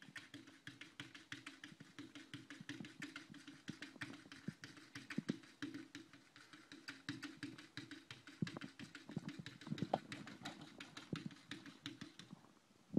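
A cat's paws tapping and batting against window glass in quick, uneven taps, several a second, with a few louder knocks now and then, over a steady low hum.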